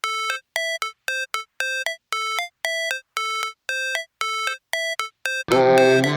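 Background music: a short synthesizer melody of separate pitched notes repeating about twice a second, then the full electronic track with bass comes in about five and a half seconds in.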